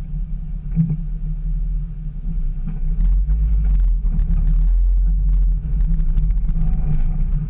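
Jeep TJ engine running at low crawling speed over rock, a steady low rumble that grows louder about three seconds in as the throttle comes on. Scattered short knocks and scrapes, from the tyres working over rock, run through the second half.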